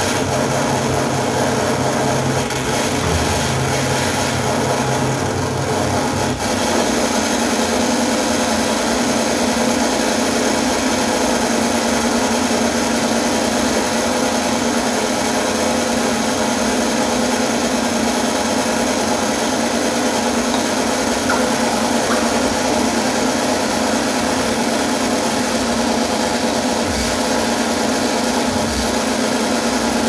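Experimental noise music: a dense, steady wall of grinding noise with many held tones layered over it. A low hum underneath drops away about six seconds in.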